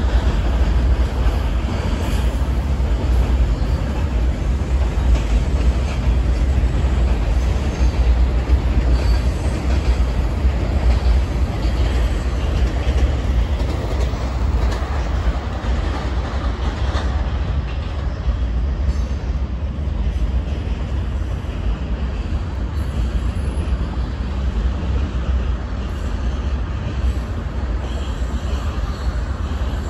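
CSX freight train, locomotives and then container cars, rolling across a steel truss bridge: a steady rumble of wheels and cars.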